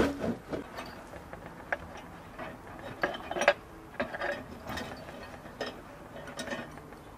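Iron chain clinking and rattling against a metal baking tray as the tray is lowered into a tandoor: a string of separate metallic clinks and knocks. The loudest come right at the start and about three and a half seconds in.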